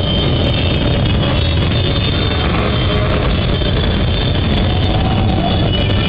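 A pack of scooters and motorcycles running and revving together inside a road tunnel, a dense, continuous engine din with wavering pitched tones from the revving engines.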